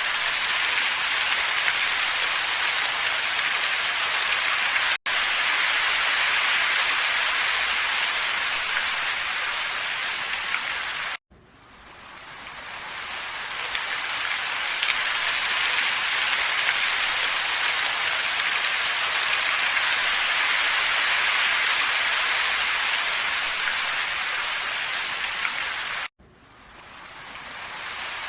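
A looped nature-ambience track: a steady, even hiss like rain or wind. It drops out abruptly three times, about 5, 11 and 26 seconds in. After the last two dropouts it fades back up over a couple of seconds, where the loop is spliced.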